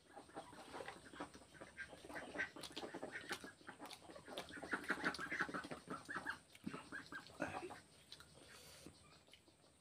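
Eating sounds: chewing and lip-smacking over rice and vegetable curry eaten by hand, heard as a run of short, quick clicks and clucking-like notes that is busiest around the middle and thins out near the end.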